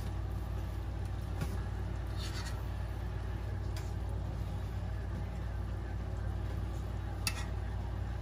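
A steady low background hum, with a few faint clicks, one slightly sharper near the end.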